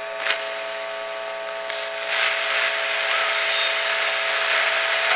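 Ghost box scanning through radio stations: a steady hiss of static with a faint hum, a sharp click about a third of a second in, and the static growing louder about two seconds in. Near the start a brief fragment is taken as a spirit voice saying "Ed?".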